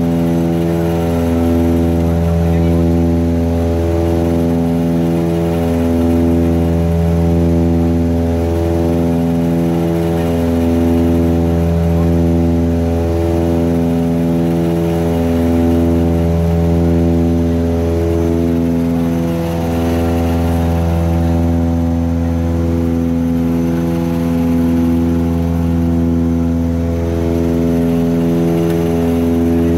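Antonov An-24B's twin Ivchenko AI-24 turboprop engines and propellers droning steadily, heard inside the cockpit. The drone throbs in and out regularly, about every second or two, as the two propellers run slightly out of step and beat against each other.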